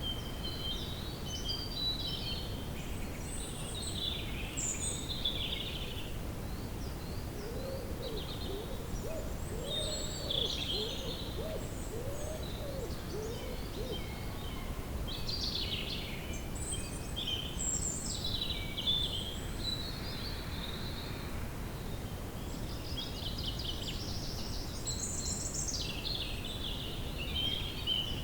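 Woodland birdsong: several small birds chirping and trilling throughout, with a quick run of about nine low, arching call notes from roughly eight to fourteen seconds in, over a steady low rumble.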